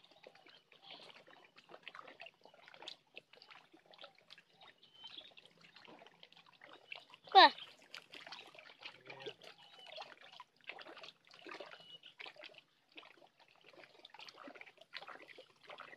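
Lake water lapping and trickling against a rocky shoreline in small irregular splashes, with one brief, loud sweeping squeal about halfway through.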